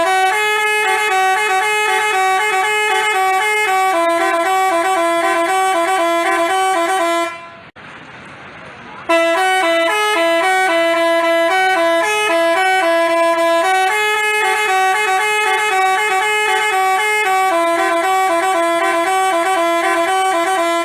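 Bus telolet horn of the Basuri type playing its multi-note tune, the loud pitched tones stepping back and forth in a jingle. It breaks off about seven seconds in for nearly two seconds, then plays the tune again.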